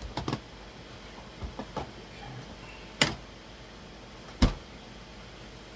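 Hard objects being handled: a few light clicks and knocks, then two sharp knocks about a second and a half apart.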